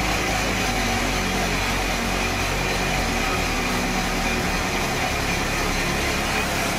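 Sawmill band saw machinery running steadily, a continuous mechanical drone with a steady high whine.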